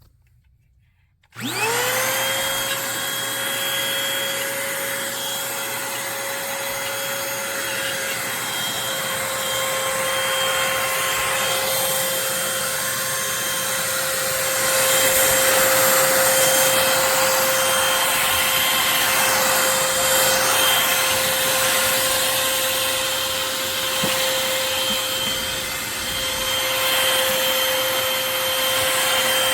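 Eureka lightweight corded stick vacuum switched on about a second in, its motor spinning up within a moment to a steady high whine. It then runs continuously, its suction hiss swelling and easing.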